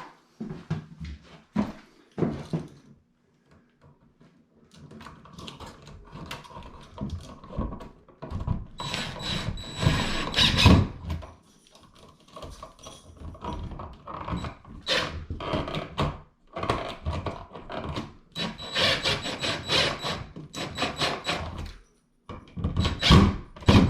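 Handling noise of a wall light switch being worked into its electrical box: irregular clicks, knocks and rustling in bursts, with a short lull a few seconds in.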